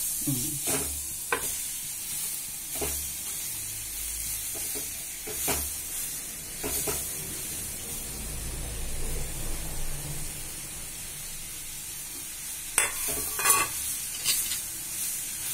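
Onions, spices and ridge gourd pieces sizzling in hot oil in a clay pot while a spatula stirs them, scraping and knocking against the pot every few seconds. The sharpest scrapes come near the end.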